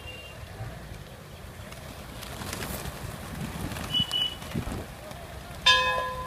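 Street noise with rumble and wind on the microphone, a brief high chirp about four seconds in, then a vehicle horn honking loudly near the end with a steady, buzzy note.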